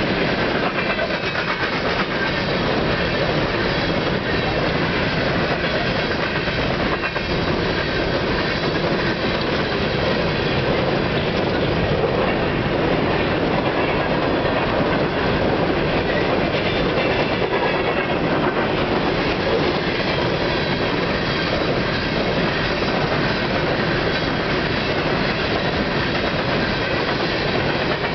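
Empty coal train rolling past at speed: a steady rumble of steel wheels on rail with the rattle and clatter of empty coal gondola cars, continuous and unchanging.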